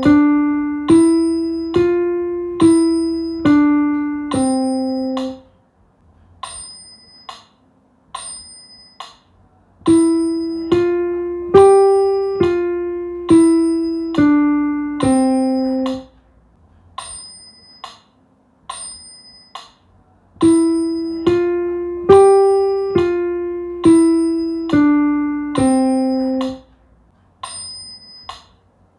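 Piano played one hand at a time: three short phrases of about seven evenly paced single notes each, stepping up and back down around middle C, the last note held. A light tick sounds on every beat, about one a second, and carries on through the rests between phrases.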